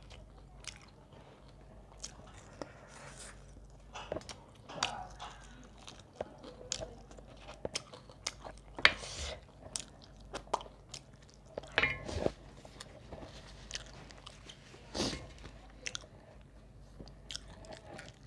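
Close-miked chewing and biting on roast chicken wing, crunching and gnawing meat and gristle off the bones, with irregular sharp clicks and wet smacks, the loudest about nine seconds in.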